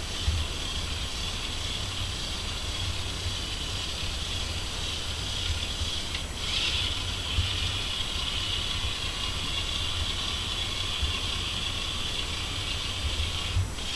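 LEGO Boost train running on plastic LEGO track: a steady electric-motor whir over the low rumble of the wheels, briefly breaking off about six seconds in and again near the end.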